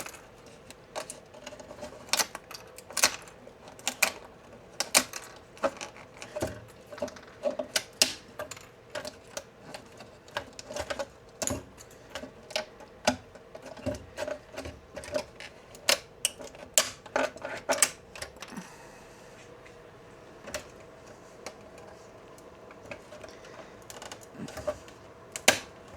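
Support material snapping and cracking off a large 3D-printed plastic part as it is pried away with pliers and fingers: a run of sharp, irregular clicks and snaps, several a second at times, that stops about two-thirds of the way through, with one more snap near the end.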